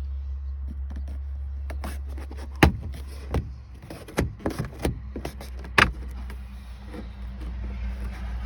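Plastic dash side trim being worked free of its retaining clips: a handful of sharp clicks and knocks starting about two and a half seconds in, over a steady low hum.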